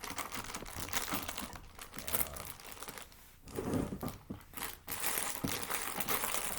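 Packaging crinkling and rustling as items are rummaged through and handled in a first aid kit, in irregular bursts with a short lull about halfway through.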